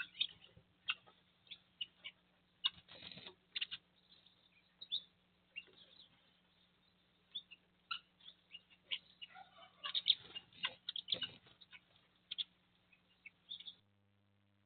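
Small birds chirping in short, scattered calls mixed with little clicks, over a faint steady hum; it all stops suddenly near the end.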